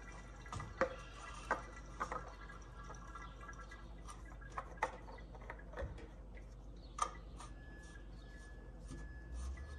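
Faint, scattered drips and small ticks of engine oil dribbling from the oil filter mount into the drain pan below.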